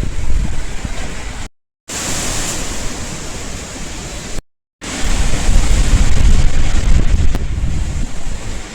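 Strong wind blowing hard, with a heavy low rumble of wind buffeting the microphone. It cuts out abruptly twice for a moment, and is loudest in the second half.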